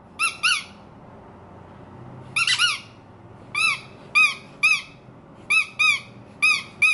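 Rubber squeaky dog toy squeezed over and over, giving short squeaks that rise and fall in pitch, mostly in quick pairs. About a dozen squeaks, with a pause of a second and a half after the first pair.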